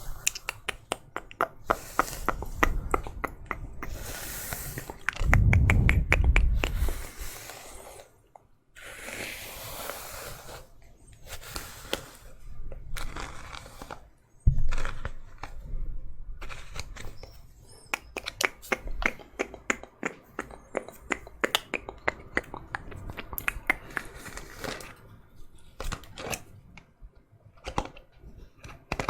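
Hairbrush bristles brushed close to a microphone, giving many quick crackling strokes. A low rumbling handling noise comes about five to seven seconds in, and a single knock halfway through.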